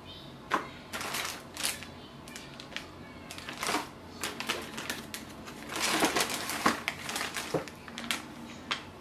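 Packaging being handled while unpacking accessories: cables, a cardboard accessory box and a plastic bag of manuals rustle and crinkle in irregular bursts, with a few sharp clicks and knocks. The handling is busiest about six to seven seconds in.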